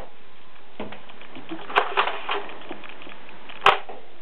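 Two sharp clicks about two seconds apart over a steady hiss, with a faint rattle just after the first click.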